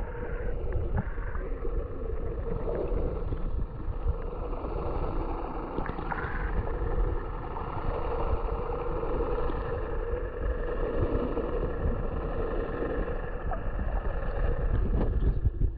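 Muffled underwater sound heard through a snorkeler's camera: a steady low rumble of moving water with scattered small knocks, and a steady hum running underneath.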